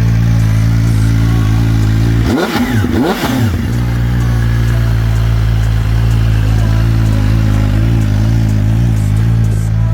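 QJMotor SRK 921RR motorcycle engine idling steadily, blipped twice in quick succession about two and a half seconds in, each rev rising and falling back before it settles to idle again.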